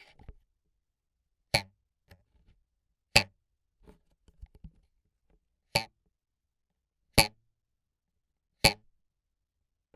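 Five sharp, separate foley strikes, each a short crack with a brief ring, spaced a second or two apart. Faint small clicks and rattles come between them.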